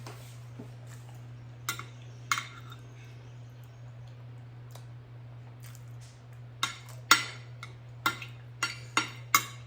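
Utensils clicking and tapping against a dish: two sharp clicks about two seconds in, then a quicker run of about six in the last three seconds. A steady low hum sits underneath.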